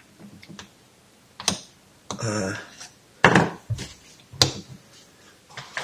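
A spanner clinking and knocking against the metal parts of a moped's Showa front fork leg as it is worked into place by hand: a few separate sharp knocks in otherwise quiet handling.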